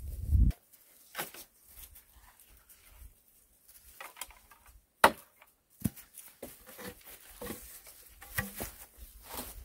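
Split bamboo halves clicking and knocking against each other as they are lashed together with cord, with a sharp knock about five seconds in. A brief low rumble at the very start.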